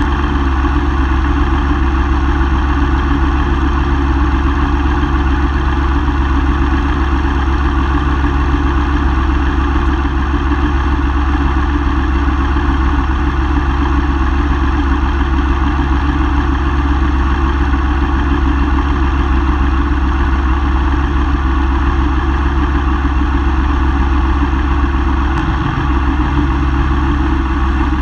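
2005 Yamaha R6's inline-four engine idling steadily.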